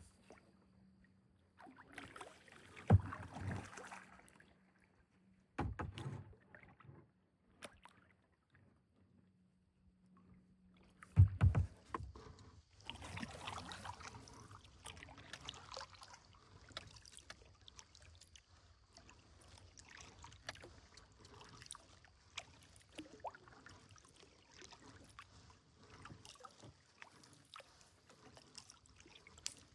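Kayak being paddled: paddle strokes splashing and dripping water, with two loud thumps, about three seconds in and again about eleven seconds in, before the paddling settles into a steady run of splashes.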